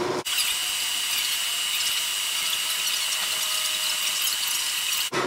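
Acetylene torch flame hissing steadily, with a thin high whistle over it, as it heats a sword blade for the hardening heat treat. It starts abruptly just after the start and cuts off just before the end.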